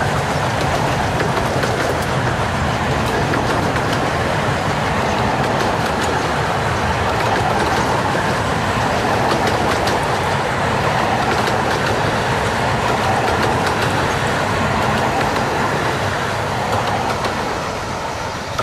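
A long train of 15-inch-gauge miniature railway coaches rolling past close by, a steady rumble of wheels on rail with scattered light clicks. The sound eases off near the end as the last coaches go by.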